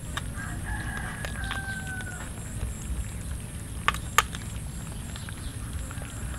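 A rooster crowing: one long call of about two seconds that falls slightly in pitch. Two sharp clicks follow about four seconds in.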